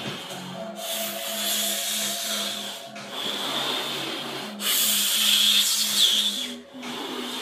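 A person blowing up a rubber party balloon: several long, hissing breaths into it, each broken off by a short pause to breathe in. Quiet background music plays underneath.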